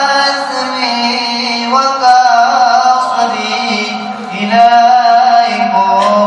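A voice singing an Arabic devotional poem (a qasida) in long, held, gliding notes, with a steady low note sounding underneath throughout.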